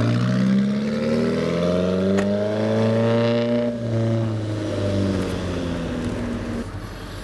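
Alfa Romeo car engine accelerating away: the revs climb for about three and a half seconds, drop at a gearchange, then rise again more gently and fade.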